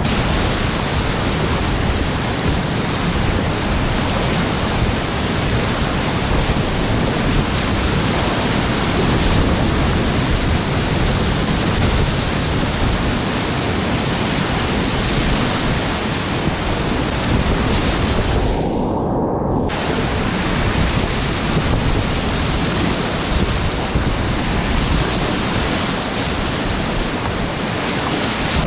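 Whitewater rapids rushing and crashing around a kayak, heard from a helmet-mounted camera, with wind buffeting the microphone. About two-thirds of the way through, the sound goes muffled for a second or so.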